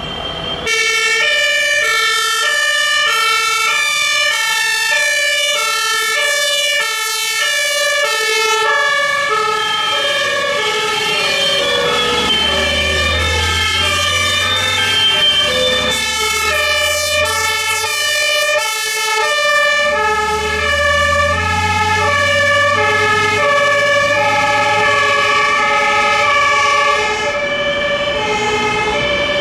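Several fire engines' two-tone sirens (German Martinshorn) sounding at once, out of step with one another, their alternating high-low notes overlapping. A heavy vehicle engine rumbles underneath through the middle of the stretch.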